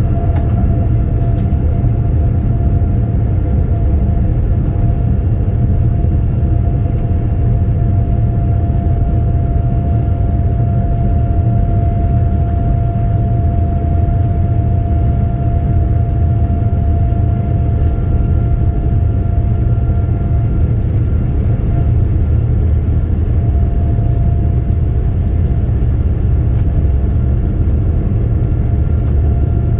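Cabin noise of a Boeing 787-9 rolling on the ground: a steady, loud low rumble from the wheels and airframe with a steady whine from its GEnx turbofan engines above it.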